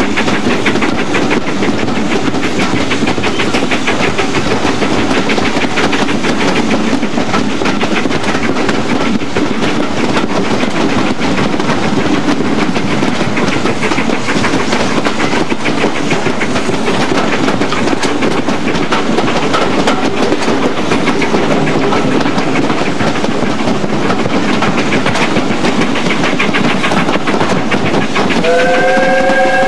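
Steam-hauled train heard from an open carriage window: steady running noise of the coaches on the rails with a rapid regular beat throughout. A steam locomotive whistle starts near the end, several notes sounding together, with a brief rise in pitch as it opens.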